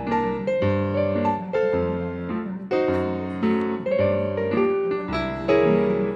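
Background piano music, with notes and chords struck about twice a second over a low bass line.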